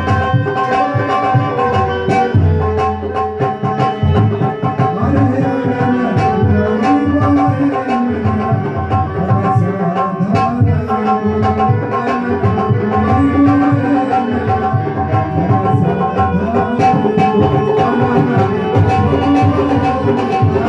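Dholak drum playing a steady, lively rhythm under a harmonium holding sustained chords and melody, the instrumental accompaniment of a devotional bhajan.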